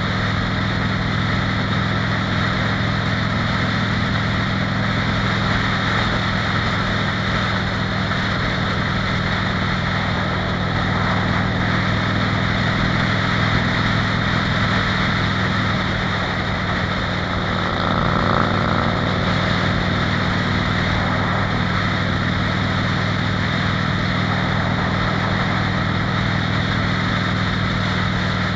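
Harley-Davidson Fat Bob's V-twin engine running steadily at highway cruising speed, heard from the handlebars with heavy wind and road noise over it.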